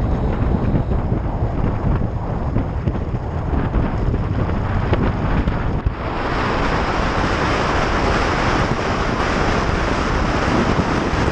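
Wind rushing over the microphone of a camera mounted on a moving motorcycle, with a low rumble underneath. About halfway through, the rush turns brighter and hissier.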